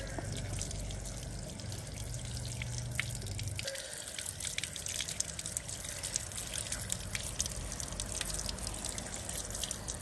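Water running from an outdoor tap and splashing over hands and onto a wet concrete floor, with many small splashes and drips. A low background hum drops away about four seconds in.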